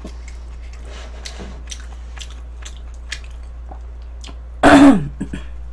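Close-miked eating sounds: small clicks and smacks of chewing and of wooden chopsticks stirring and lifting noodles in a paper cup of spicy jjamppong ramen. About four and a half seconds in, a short loud vocal sound falling in pitch.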